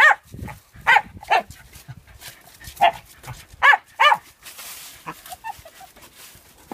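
Small terriers barking while hunting under wooden steps: about six sharp barks in the first four seconds, then quieter.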